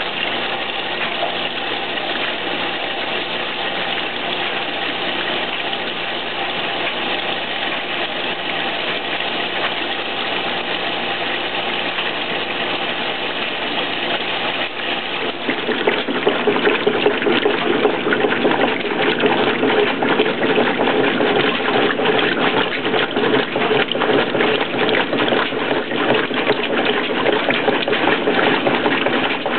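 Washing machine running, a steady motor hum under the rush of water in the drum. About halfway through the water noise gets louder and rougher.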